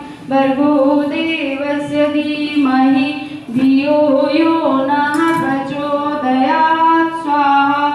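A woman singing a devotional song unaccompanied, holding long notes that step up and down in pitch, phrase after phrase with short breaths between.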